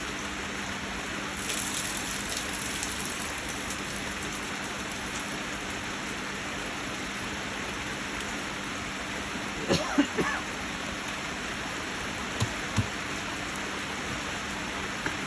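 Steady hiss of rain falling, with a few short knocks about ten seconds in and two more soon after.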